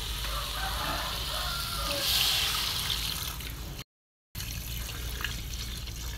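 Pork pieces sizzling in an aluminium pot, then water poured in from a plastic container, splashing into the pot. The sound drops out for about half a second just before the four-second mark.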